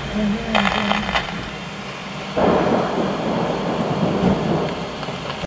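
Rain pattering on a car windscreen during a thunderstorm. About two and a half seconds in, a loud thunderclap breaks and rumbles on.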